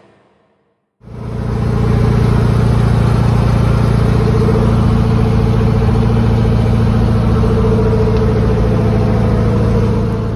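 Car engine and road noise while cruising: a steady, loud drone with a low hum that cuts in abruptly about a second in, after a moment of silence.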